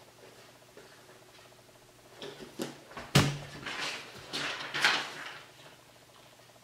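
Paper and books handled on a tabletop: a couple of light knocks, then a solid thump about three seconds in, followed by pages of a paperback book being flipped and rustling for a couple of seconds.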